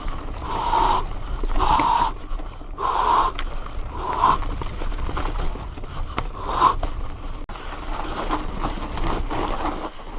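Mountain-bike descent on rough forest singletrack heard from a helmet camera: constant wind and tyre-on-trail rumble, with the rider's hard, heavy breaths coming in bursts every second or two.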